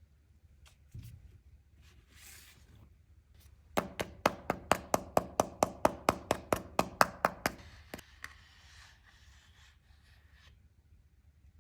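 A quick, even run of about seventeen sharp taps of a hard tool on a hard surface, four or five a second for nearly four seconds, each with a short ring. Fainter soft rustling comes before and after.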